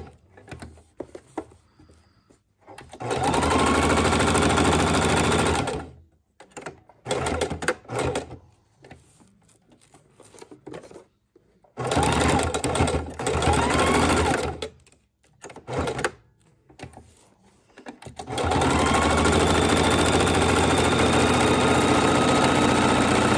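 Electric sewing machine stitching hook-and-loop tape onto fabric in several separate runs. Each run starts with a short rising whine as the motor speeds up, with quiet pauses and small handling clicks between runs, and the longest steady run comes near the end.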